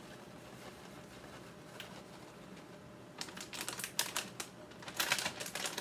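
Quiet at first, then from about three seconds in a run of sharp crackles and clicks: a plastic bag of shredded cheese crinkling as it is handled.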